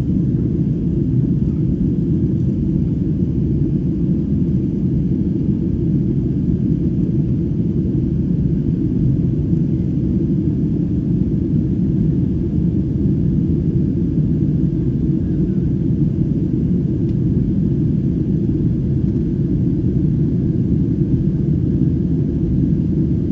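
Steady low rumble of an airliner's engines and rushing air, heard inside the cabin during the climb-out.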